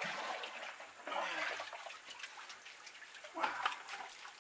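Muddy floodwater sloshing and gurgling as a plastic bucket is dipped and filled by hand to bail out a flooded pit, with a brief louder knock near the end.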